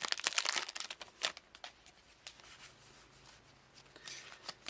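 Foil Pokémon Stormfront booster pack wrapper crinkling and tearing as it is opened: a dense run of crackles over the first second or so, then only a few scattered crackles with a short cluster near the end.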